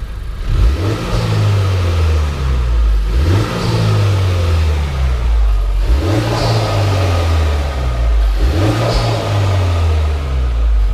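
Honda Civic FK8 Type R's stock 2.0-litre turbocharged four-cylinder engine revving: the pitch climbs and falls back about four times, once every two to three seconds, through the standard exhaust.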